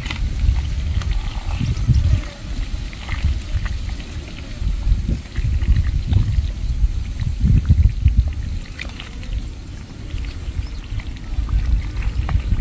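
Hands squelching and sloshing through wet mud and shallow muddy water while feeling for fish, over an uneven low rumble.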